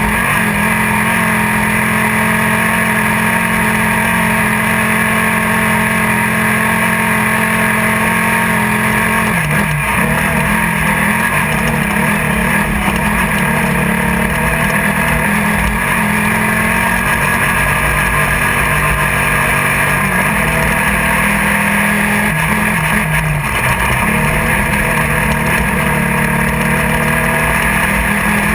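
Air-cooled Volkswagen engine of a Class 1600 desert race buggy running hard at steady high revs, heard from inside the car. The revs dip briefly about ten seconds in and again near twenty-three seconds.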